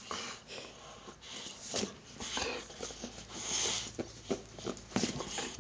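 Dog breathing close to the microphone and chewing on a plush toy held in a hand, with irregular breathy puffs and soft clicks.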